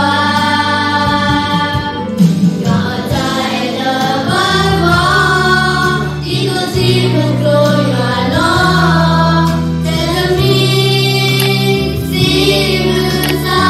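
A children's choir singing together, one voice carried on a microphone, over an accompaniment of held low chord notes that change every second or two.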